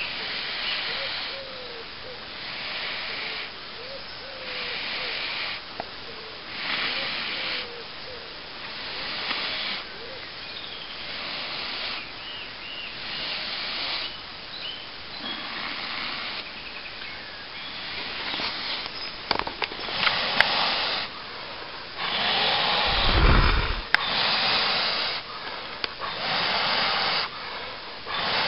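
A person blowing long, steady breaths into a tinder bundle around a glowing charcoal ember to coax it into flame, about one blow every two seconds. One blow near the end is louder and rumbles on the microphone.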